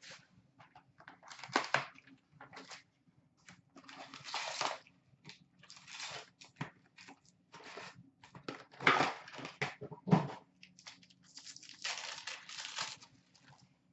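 Hobby box of trading card packs being opened by hand: a series of short crinkling, tearing bursts as the box lid and pack wrappers are pulled open, the loudest about nine seconds in.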